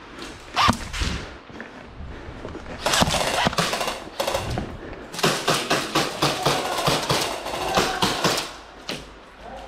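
Airsoft guns firing rapid strings of shots: a sharp crack under a second in, then a fast clattering string about three seconds in and a longer one from about five seconds to eight and a half.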